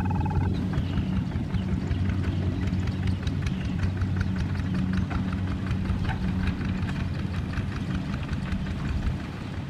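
Single-cylinder diesel engine of a two-wheel walking tractor running steadily as it pulls a wooden cart along a dirt track, with an even chugging beat. It gets a little quieter near the end as it moves off.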